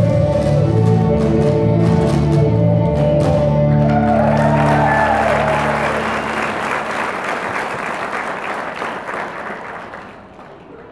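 Dance music with a steady low beat ends about five seconds in, as audience applause breaks out over it and then dies away near the end.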